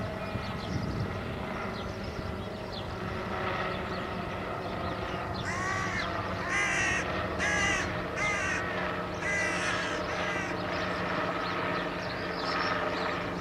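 A bird gives a run of about six short, harsh, caw-like calls about halfway through, over a steady low hum.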